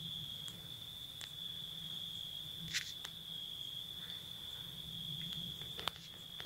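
A steady high-pitched whine on a single pitch, with a few faint clicks, the clearest about three seconds in.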